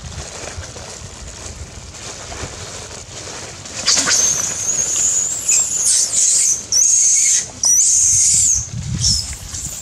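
Young macaque screaming in distress during a chase and scuffle over food, a run of about four or five long, very high-pitched screams with short breaks, starting about four seconds in.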